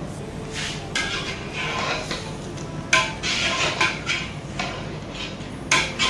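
Cooking pots and utensils clattering and clinking: a series of short knocks with some brief ringing, the loudest about three seconds in and another near the end.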